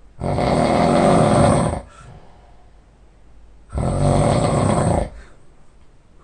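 A person snoring heavily in deep sleep: two loud snores, each about a second and a half long, with a quiet breath between them.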